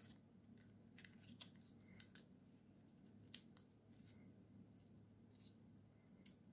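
Faint paper handling: light clicks, taps and rustles of cardstock and thin die-cut paper pieces being moved and tucked into place, scattered irregularly over a low steady hum.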